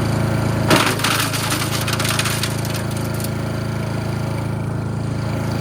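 GreatCircleUSA chipper-shredder's gas engine running steadily; about a second in, material is fed in and shredded with a loud burst of crackling and clattering that lasts about two and a half seconds before the engine runs on alone.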